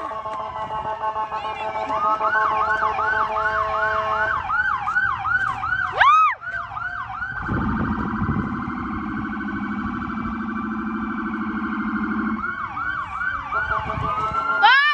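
Several emergency vehicle sirens sounding at once from fire trucks and police cars, switching between slow wails and fast yelps. Between about seven and twelve seconds in, a low steady tone sounds under them, and a quick rising whoop comes near the end.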